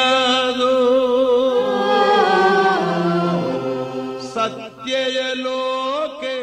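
A choir singing a Sinhala Buddhist devotional song, holding long drawn-out notes with vibrato. The singing dips briefly about four seconds in, then a new phrase begins.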